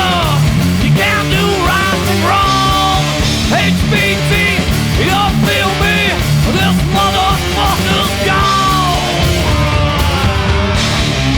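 Stoner rock band recording: distorted electric guitars, bass and drums playing a heavy riff, with lead lines bending in pitch.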